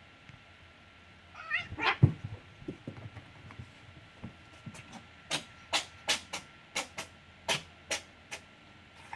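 A pet sneezing: a short wavering whine ending in one loud sneeze about two seconds in. About three seconds later comes a run of about eight short, sharp sneezes, roughly two a second.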